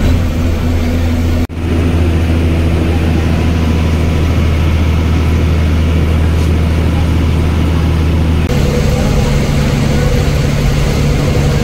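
Bus engine running, a steady low hum. It breaks off abruptly about a second and a half in and changes again near the end.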